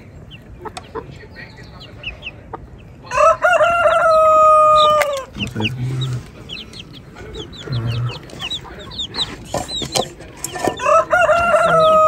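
Chicks peeping constantly in short falling cheeps, while a rooster crows twice: one long call about three seconds in and another starting near the end. A couple of short low clucks come in between.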